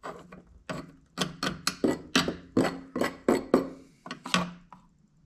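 A quick, uneven series of hard taps and knocks, about fifteen in four seconds, each with a short ring, from hands and tools working on a chainsaw's oiler area.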